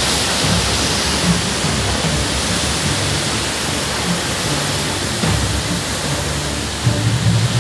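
Steady, loud roar of cyclone wind and rain, an even hiss, with background music underneath.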